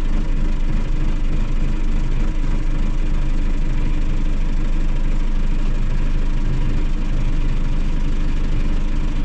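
An engine idling steadily, its pitch and level unchanged.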